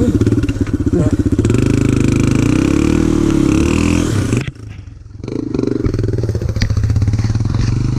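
Motorcycle engine running under load off-road, its pitch rising and falling with the throttle. It drops away sharply about halfway through, then picks up again.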